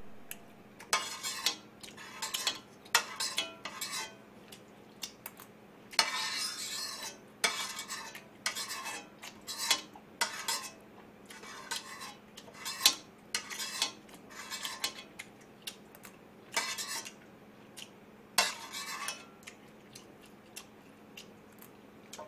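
Metal spoon scraping and clinking against a two-handled metal pot, in irregular strokes with short pauses, as the last of the ramen broth and noodles is scooped up.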